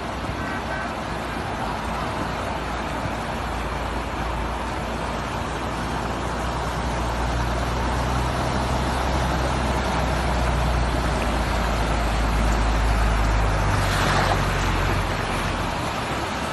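A motor vehicle's engine hum under a steady rushing noise. The engine grows louder from about six seconds in and drops away near the end.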